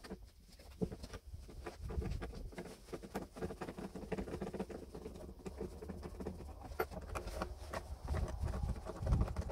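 Hand screwdriver working a screw out of an old oak workbench: dense, irregular scratchy clicking as the tool turns in the wood, with a dull thump near the end.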